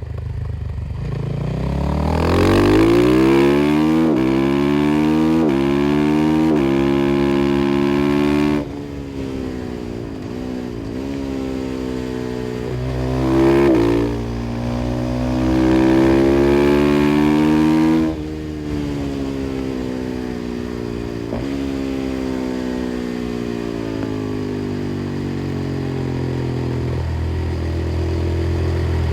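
A KTM 500 EXC-F single-cylinder four-stroke with an FMF exhaust accelerating hard through the gears, its pitch climbing and then dropping back at each upshift. The throttle shuts off about eight seconds in. A second hard pull runs from about fourteen to eighteen seconds and is cut off sharply, and the engine then runs lower and steadier as the bike slows.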